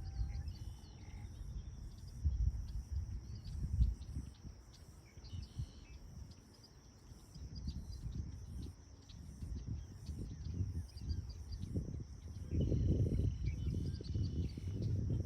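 Outdoor ambience: a steady high insect drone with fine chirping and a few faint bird calls, over an uneven low rumble that swells and fades and is loudest near the end.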